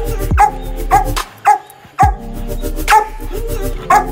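Black Labradors barking repeatedly, a sharp bark about every half second, over background music with a deep bass beat.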